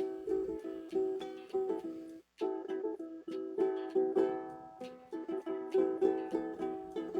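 Guitar strummed in a steady rhythm, each chord ringing between strokes, with a brief stop about two and a half seconds in.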